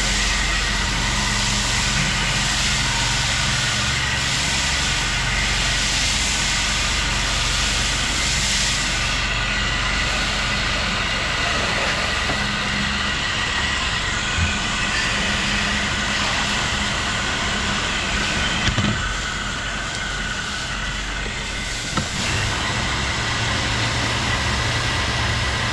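Pressure washer running steadily at half speed: a low engine hum under the continuous hiss of the spray hitting the wall. There are a few brief knocks along the way.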